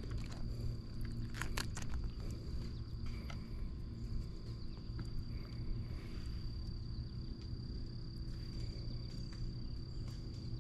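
Insects singing a continuous, steady high-pitched trill over a low, steady rumble, with a quick cluster of sharp clicks about a second and a half in.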